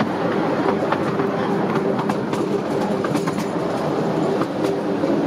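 Miniature railway train running, heard from on board: wheels clicking irregularly over the rail joints over a steady engine hum, the train diesel-hauled as the steam locomotive is out of use for overhaul.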